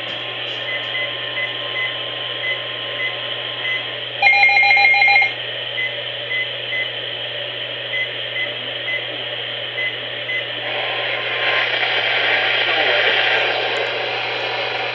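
Radio receiver static: a steady hiss over a constant low hum, with faint short beeps repeating. About four seconds in, a loud burst of several steady tones lasts about a second. From about eleven seconds the hiss grows broader and louder.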